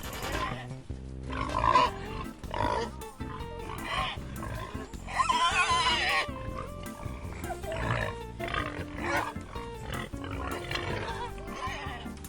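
Farm animal calls over background music: short rough grunting calls repeat throughout, with one longer, louder, higher cry about five seconds in.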